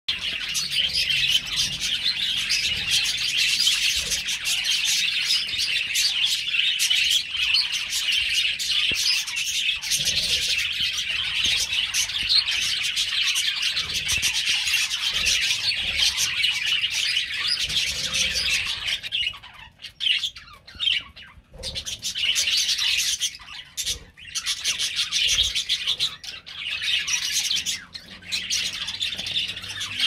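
A flock of budgerigars chattering and chirping continuously, a dense overlapping mass of high chirps, with a few brief lulls about two-thirds of the way through.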